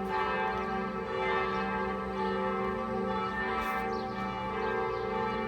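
Several large cathedral church bells ringing together in a peal. The strikes overlap and each rings on, with a fresh strike about every second.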